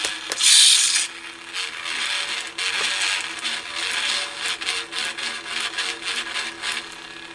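Lightsaber sound board playing a saber sound font through a small test speaker: a loud hissing burst in the first second, then a steady buzzing hum.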